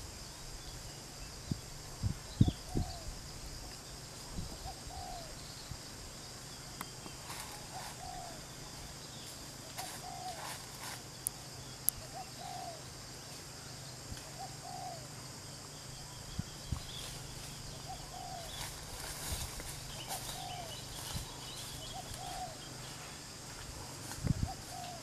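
A bird repeats a short, arched call note every second or two over a steady high insect drone. A few dull thumps come near the start and again near the end.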